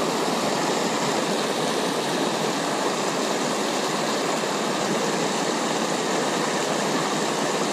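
Rushing water of a small cascade tumbling over granite boulders in a mountain creek: a steady, even rush of white water.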